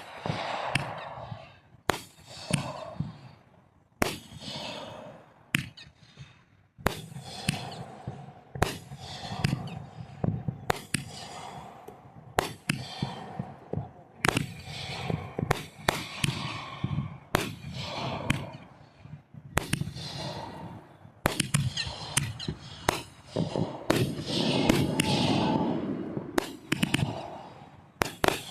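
Consumer aerial fireworks going off in a steady series: dozens of sharp bangs, about one or two a second, each with a crackling, echoing tail. The bursts grow denser and louder near the end.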